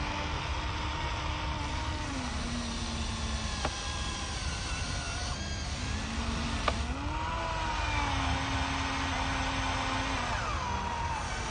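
Small electric motors of a radio-controlled model excavator or dump truck whirring, their pitch sliding up and down as they change speed, with two sharp clicks.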